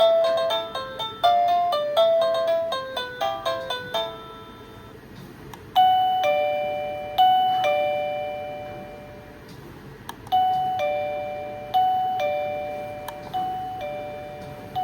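Electronic doorbell chime playing through its ringtones. A quick chiming melody ends about four seconds in, then a two-note high-low ding-dong sounds over and over in two groups with a pause between.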